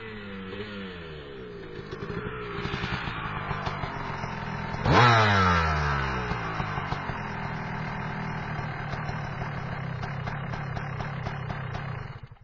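Enduro motorcycle engines running and revving, their pitch rising and falling. About five seconds in one engine revs sharply and loudly, the loudest moment, then its pitch drops away; the sound cuts off abruptly near the end.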